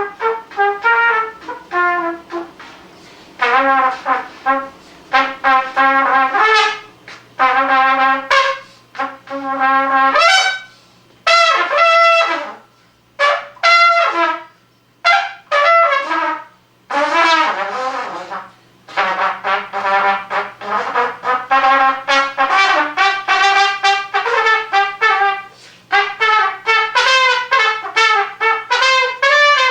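Unaccompanied trumpet playing an improvised solo in phrases broken by short pauses. It starts with short, clipped figures of repeated notes, then moves into longer, faster runs from about twenty seconds in.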